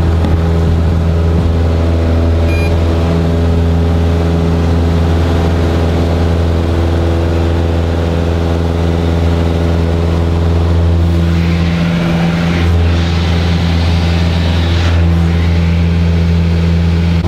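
Single-engine light aircraft's piston engine and propeller at takeoff power, heard inside the cockpit: a loud, steady drone. A rushing noise joins it for a few seconds past the middle.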